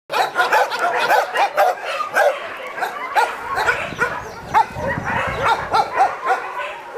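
Several large dogs barking repeatedly, their barks overlapping at a few a second.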